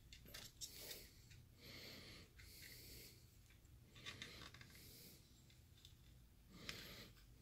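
Near silence, with a few faint, soft breaths close to the microphone, each about a second long.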